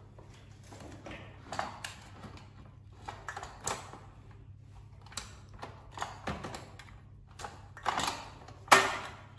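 Irregular clinks and knocks of a metal frying pan and spatula being handled on a portable gas stove, about one every second, the loudest near the end.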